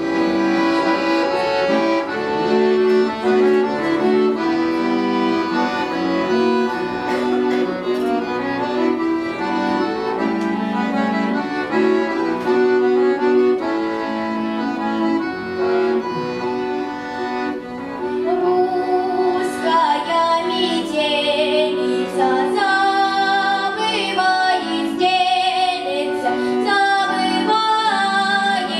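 Bayan (chromatic button accordion) playing the introduction to a Russian folk-style song, with steady full chords. Around two-thirds of the way through, a girl's voice joins, singing over the accordion.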